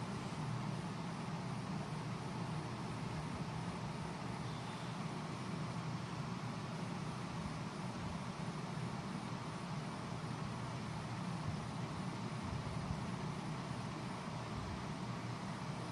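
Steady low hum with a faint hiss of background noise, unchanging throughout, with no distinct events.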